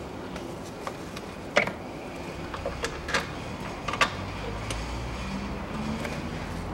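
Hands refitting a car's plastic air filter housing: a few irregular sharp clicks and knocks, the loudest about a second and a half in and again at four seconds, over a steady low hum.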